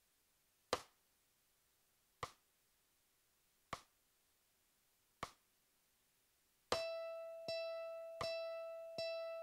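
A metronome ticks four times at a slow, even 40 beats per minute, then a mandolin's open E string is picked four times in even eighth notes, each note ringing and fading before the next, with the click going on under them.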